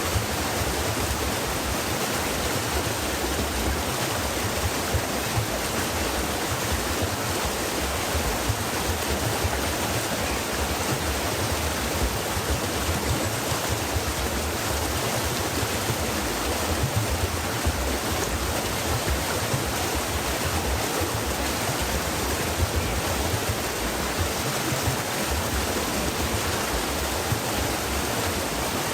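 Stream water rushing and splashing over rocks, a steady, unbroken rush.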